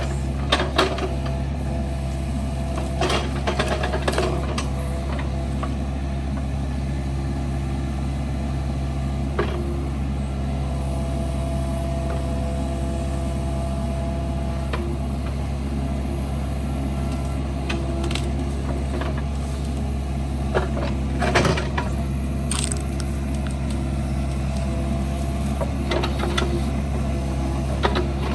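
Excavator's diesel engine running steadily under load while it carries a tree root ball, with a few sharp knocks and clanks from the machine, the loudest about twenty-one seconds in.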